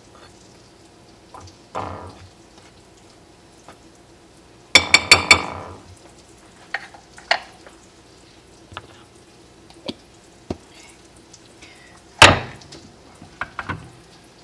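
Kitchen utensils and dishes clattering on a counter. A quick run of four ringing clinks comes about five seconds in, then scattered light clicks, and one loud knock near the end.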